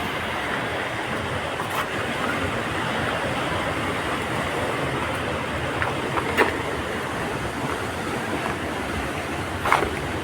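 Steady rushing noise, with a few short sharp clicks or knocks, once around the middle and once near the end.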